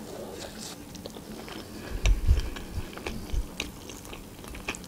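Close-up chewing of a mouthful of charlotte (soft Russian apple sponge cake), with wet mouth clicks and a few soft low thumps about two seconds in. Near the end a plastic fork clicks against the plate as the next piece is cut.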